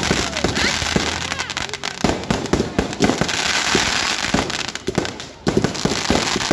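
Fireworks going off in quick succession: rapid crackling pops and bangs from aerial shells bursting overhead, over the steady hiss of a ground fountain firework spraying sparks. The pops thin out briefly about five seconds in, then pick up again.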